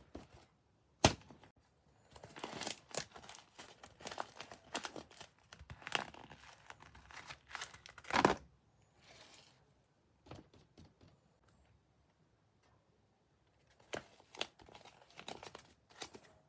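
Wrapping being torn and crumpled by hand in irregular rustling bursts. A sharp snap comes about a second in and the loudest tear about eight seconds in, with a quieter stretch a little after the middle.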